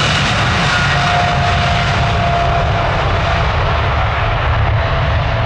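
Jet airliner's engines running loud, with a deep rumble under a faint whine that drifts a little in pitch. The highest part of the hiss gradually dulls as the aircraft moves away.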